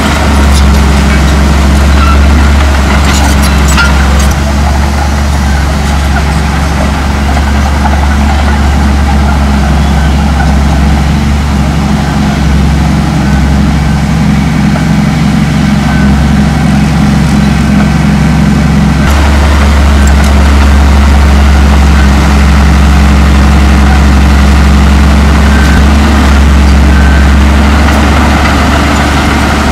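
Komatsu D58E crawler dozer's diesel engine running steadily at work, with a few clanks about three to four seconds in and a change in the engine note about two-thirds of the way through.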